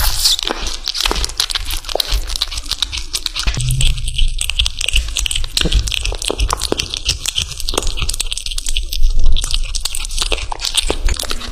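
Kitten biting and chewing raw chicken close to the microphone: quick, irregular chewing clicks.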